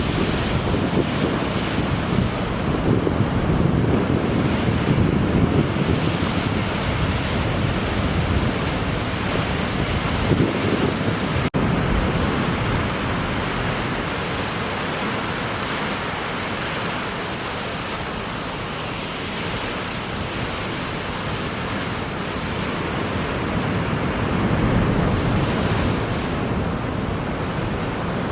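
Ocean surf washing and breaking, with wind buffeting the microphone, swelling and easing over several seconds. The sound cuts out for an instant about eleven seconds in.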